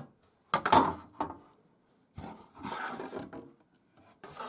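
Handling noise from a plastic side-window panel being set against a PC case: a sharp knock about half a second in and a smaller one after it, a rubbing slide in the middle, and another short knock near the end.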